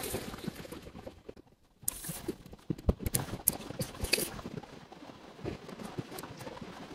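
Dry leaves and twigs crackling and rustling with scattered faint clicks, as a small fire of leaf litter and kindling is laid and lit by hand.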